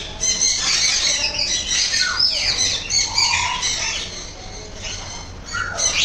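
A flock of Indian ringneck parakeets squawking and screeching at once, many shrill overlapping calls. The din eases for a moment past the middle and picks up again near the end.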